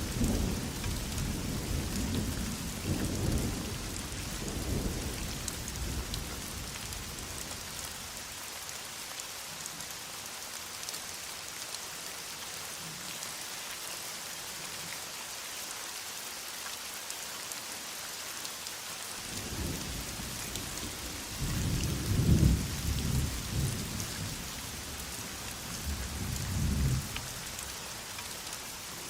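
Heavy rain falling steadily, with rolling thunder rumbling low over the first few seconds and again from about two-thirds of the way in, loudest in two swells near the end.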